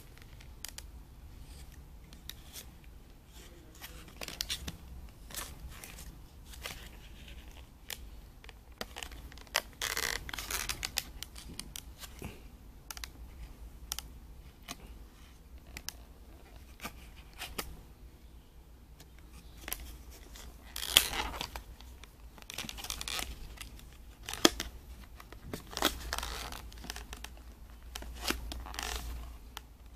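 A clear hard plastic watch case and plastic wrapping being handled: crinkling and scraping with sharp plastic clicks. It comes in bursts, a long one about ten seconds in and several more in the last third, two of them loud clicks.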